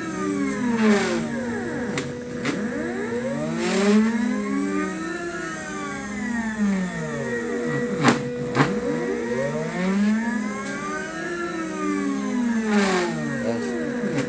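Stepper motors of a home-built CNC machine running its first G-code program, whining in tones that glide up and down as the axes speed up and slow down, over a steady hum. A few sharp clicks cut through.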